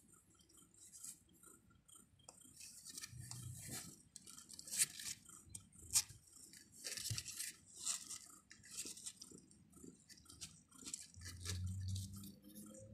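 Newborn kittens suckling at their mother cat: soft irregular wet smacking, clicking and rustling of fur, with no meowing.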